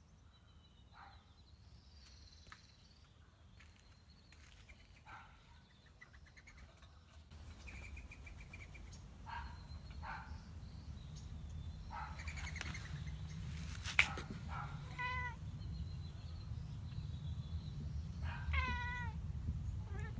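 A house cat meowing again and again, the calls louder and more frequent in the second half. There is a low rumble underneath and one sharp knock about two-thirds of the way through.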